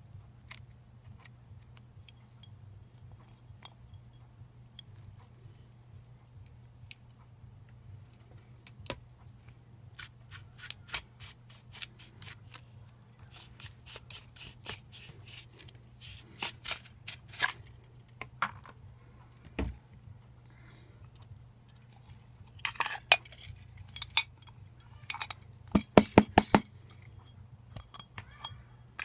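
Sharp clicks and light metallic clinks of lightsaber hilt parts and tools being handled during disassembly. They are sparse at first, grow busier, and end in a quick run of loud knocks near the end, over a faint steady low hum.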